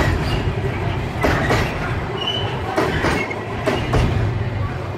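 Freight train's container flat wagons rolling past at low speed: a steady rumble of wheels on rails, with pairs of sharp wheel clicks over the rail joints about once a second, and a brief faint squeal about halfway through.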